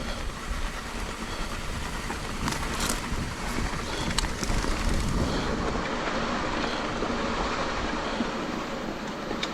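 Mountain bike rolling downhill over a rough, wet dirt trail: a steady rumble of tyres and wind on the microphone, with a few sharp clatters from the bike over bumps in the first half.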